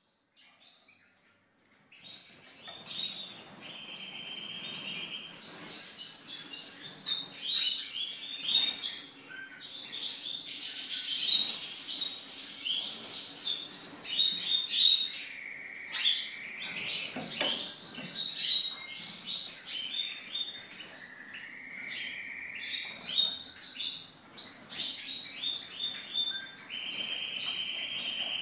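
Several aviary finches calling and singing together, starting about two seconds in: a dense chatter of quick twittering notes with some held whistles and a few sliding lower notes.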